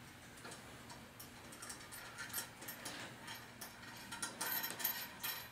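Light metallic clicking and clinking of hand tools and bolt hardware, getting busier and louder over the last two seconds.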